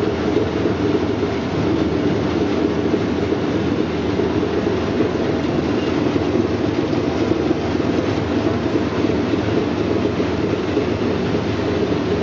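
Brush-roller vegetable washing and peeling machine running, a steady unbroken mechanical rumble.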